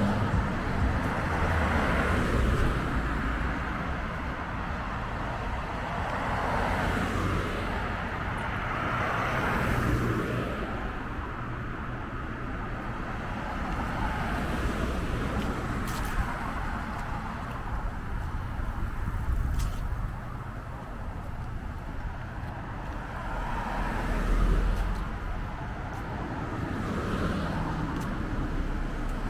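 Road traffic: a steady rumble of cars, with several passing close by, their tyre and engine noise swelling and fading a few times.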